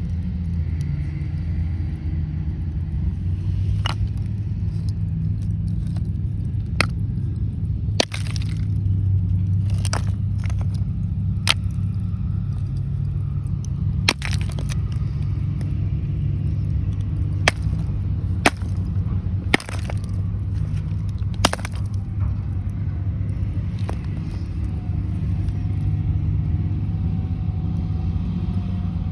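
Coal in a mine seam giving off sharp cracks and pops at irregular intervals, about a dozen over half a minute, though the coal does not visibly move; the narrator puts them down to vibration causing friction within the coal. A steady low rumble runs underneath.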